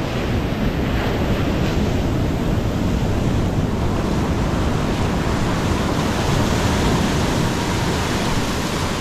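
Ocean surf: waves breaking and foamy whitewater rushing up and back across the sand close by, a steady loud wash, with wind buffeting the microphone.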